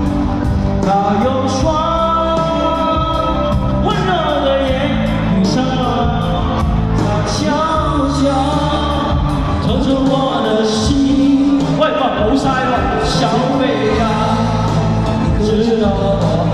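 Pop-rock band music with a steady drum beat, bass and a lead melody line, with singing.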